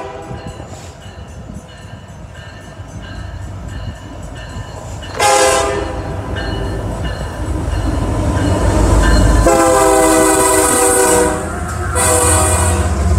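Freight diesel locomotive's air horn blowing as the train passes through a station: a fading blast at the start, a loud blast about five seconds in, then a long blast and a shorter one near the end. A bell rings quickly in the first few seconds, and the low rumble of the diesel engines grows as the train comes in.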